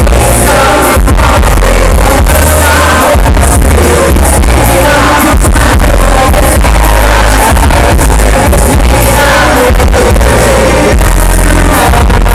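A boy group singing a pop song live into microphones over amplified music with a heavy pulsing bass beat, loud through the PA.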